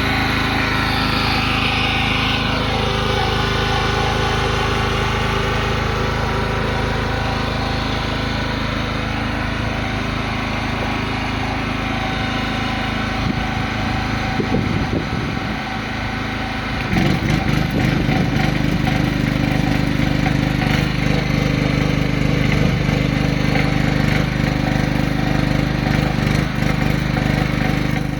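3 kW petrol generator engine running steadily. About two-thirds of the way through, its note drops and grows rougher and louder.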